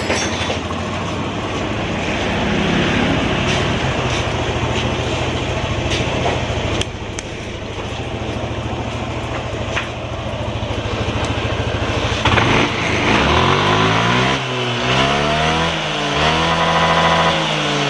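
Yamaha NMAX scooter's single-cylinder engine idling with a rough, harsh running note, which the owner calls severely rough. About twelve seconds in it is revved a few times, its pitch rising and falling.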